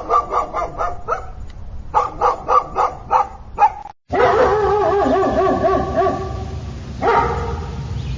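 A dog yipping in quick runs of short barks, about four a second. After a cut, a dog gives a long drawn-out cry with a wavering pitch, starting again about three seconds later.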